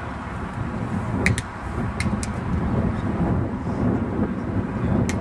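Wind buffeting the microphone with a steady low rumble. A few short sharp clicks come through, about a second in, twice around two seconds, and again near the end.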